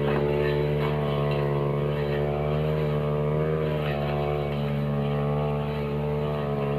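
Backpack brush cutter's engine running at a steady high speed as its metal disc blade cuts through grass and weeds, the pitch wavering slightly as the blade takes load.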